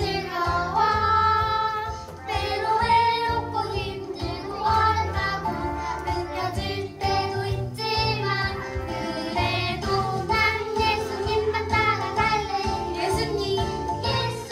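A children's praise song: music with children singing over an instrumental accompaniment.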